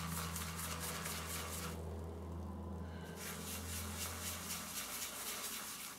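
Shaving brush swished in quick rhythmic strokes around a bowl of thin, watery lather that has collapsed, with a brief pause about two seconds in. A low steady hum runs underneath and fades near the end.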